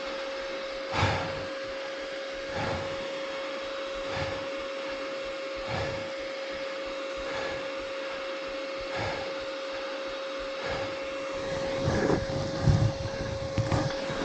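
A person breathing hard in deep, regular breaths, about one every second and a half, over a steady high hum, with louder bursts of noise near the end.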